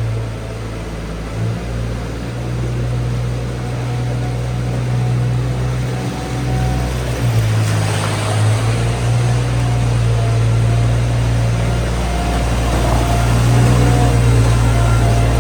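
A farm machine's engine running steadily at one constant low pitch, getting slightly louder over the stretch, with a brief burst of noise about halfway through.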